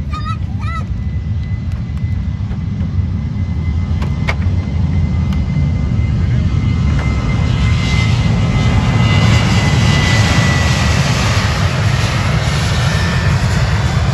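Jet airliner's engines running as it rolls along the runway, a deep rumble with a thin steady whine, the sound growing louder and hissier through the middle and latter part as the aircraft comes closer.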